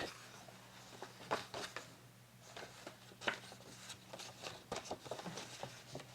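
Soft rustling and light ticks of paper being handled and laid in place, in scattered short bursts, over a faint steady hum.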